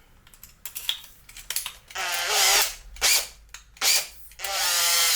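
Power drill with a 14 mm four-flute bit on an extension, boring through a 3D-printed plastic part. It runs in short trigger blips and two longer runs, its whine rising as the motor spins up.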